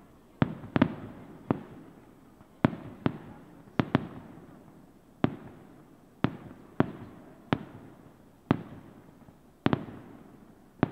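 Aerial firework shells bursting one after another: about a dozen sharp bangs at uneven intervals, each trailing off in a fading echo.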